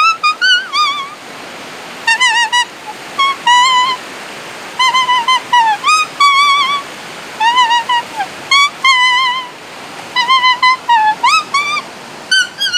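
A vallenato tune played on a lemon leaf held against the lips: a reedy, buzzing whistle in short phrases with a wavering vibrato and quick upward and downward slides. In the pauses between phrases, the steady rush of a fast river.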